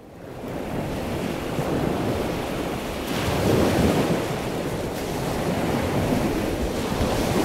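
Rushing ocean-surf noise, like waves washing, fading in over the first second and swelling about three seconds in.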